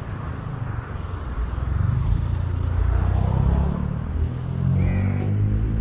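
Road traffic: car engines and tyres passing close by, a steady low rumble that gets louder about two seconds in.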